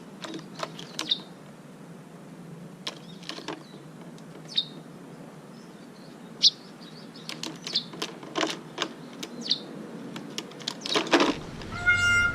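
Short, sharp bird chirps, scattered irregularly with quiet gaps between them, some sliding quickly down in pitch, with a louder cluster near the end.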